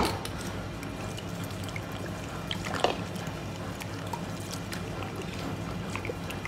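Yellow liqueur poured from a bottle into a stainless steel bowl of egg-yolk and milk mixture, trickling into the liquid. There is a sharp knock at the start and another about three seconds in, over a steady low hum.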